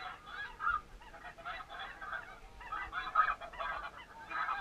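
A flock of snow geese calling: many overlapping high honks and yelps in a continuous chatter.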